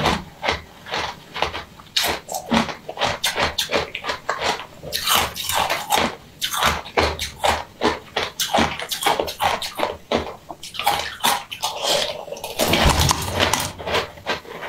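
Close-miked wet chewing and slurping of soft jelly, a fast, uneven run of squishy smacks and clicks.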